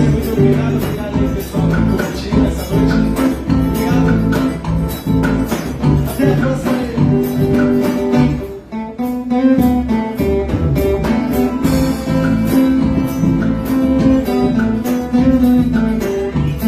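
Forró band playing over a steady beat, with acoustic guitar, bass and triangle, and a brief break about eight seconds in.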